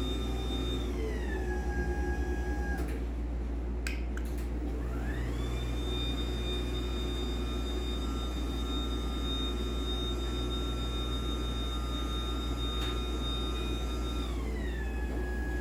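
LiftMaster 84505R belt-drive garage door opener's DC motor running with no door attached, a high whine over a steady low hum. In the first few seconds the whine glides down as the motor slows to a stop, and a couple of clicks follow. The whine then ramps back up, runs steadily, and glides down again as the motor slows to a stop near the end, kind of loud for an opener.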